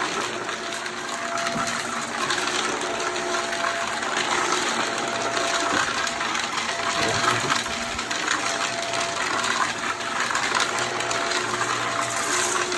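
Vacuum cleaner running steadily as it is pushed over the floor, a constant motor whine with rushing airflow and small rattles.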